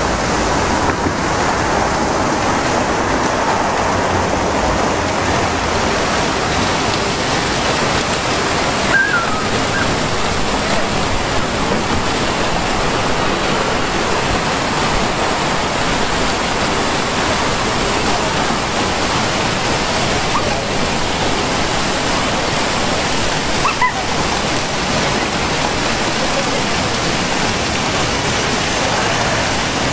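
Large two-tiered fountain with its water jets splashing into the basin: a steady, even rush of falling water.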